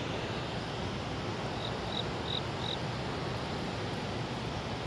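Steady rushing noise of fast tailwater churning below a dam with its generators running. About a second and a half in come four short, faint high chirps, evenly spaced.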